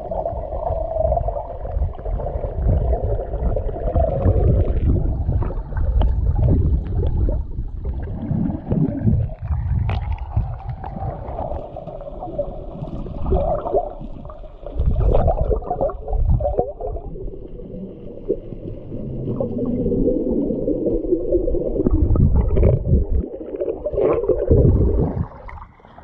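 Muffled underwater sound from a submerged camera: low rumbling and gurgling of moving water.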